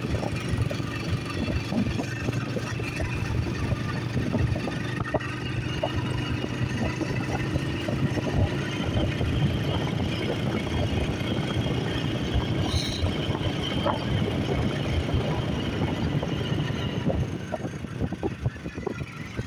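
A vehicle engine running steadily, with a low hum under dense, rough road or wind noise.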